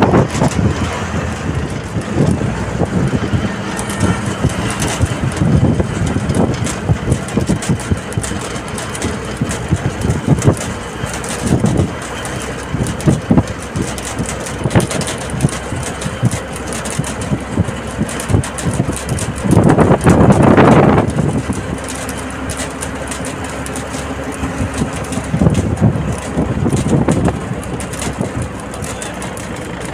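State transport bus running along a highway: steady engine and road noise, with wind on the microphone at the open door. A louder surge of noise lasts about two seconds, roughly two-thirds of the way through.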